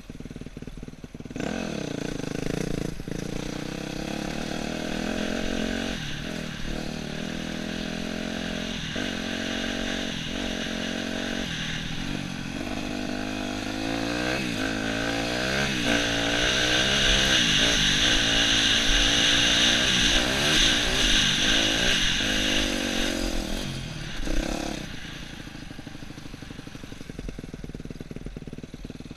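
Yamaha YZ250F dirt bike's single-cylinder four-stroke engine heard on board under way. It revs up and drops back again and again as the rider shifts through the gears. It is loudest in the middle, then the throttle comes off and it settles to a lower run near the end.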